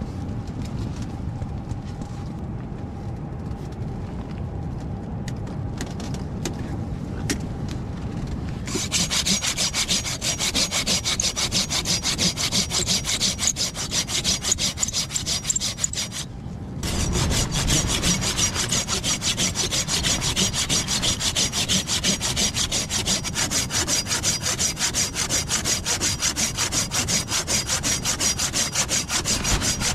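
A hand saw cutting through wood in a quick, steady back-and-forth rhythm. It starts about nine seconds in, after a low rumbling noise, and pauses briefly about halfway through.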